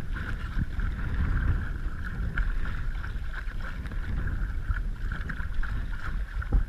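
Wind buffeting a GoPro's microphone as a steady low rumble, over a noisy wash of water around a kayak, with a few small knocks.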